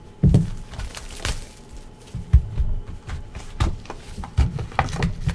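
Hands opening a cardboard Optic football trading-card hobby box: irregular cardboard scraping and rustling, with scattered dull thumps.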